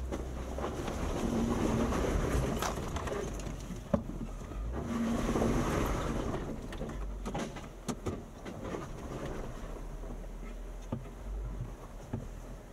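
Jeep Wrangler driving on a rough dirt trail: engine running with tyre and chassis noise, swelling and easing twice, with a sharp knock about four seconds in.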